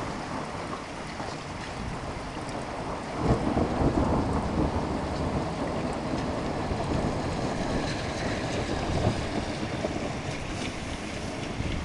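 Steady rain, with a long rumble of thunder rising about three seconds in and rolling on for several seconds.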